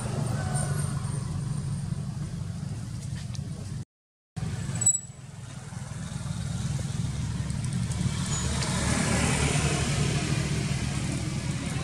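Steady low background rumble, cut off completely for about half a second around four seconds in, with a sharp click just after it returns.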